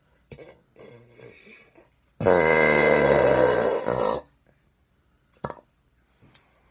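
A woman belching loudly in one long, pitched belch of about two seconds, starting about two seconds in, after some faint throat and breath sounds.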